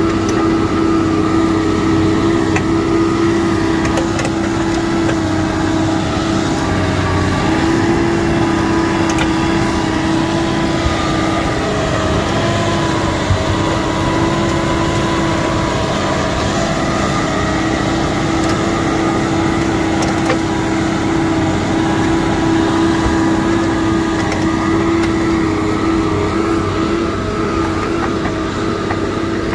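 New Holland TM 190 tractor's six-cylinder diesel engine running steadily under heavy load, pulling a subsoiler through dry ground.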